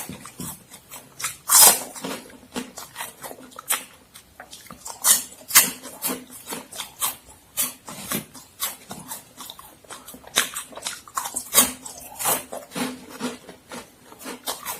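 Close-miked biting and chewing of crisp Momogi corn stick snacks: an irregular run of sharp crunches, several a second, with a few louder bites among them.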